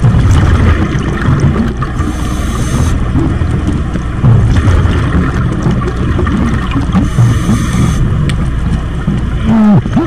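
Steady, muffled underwater noise picked up through a dive camera's housing: a low rumble with a hiss and no distinct events.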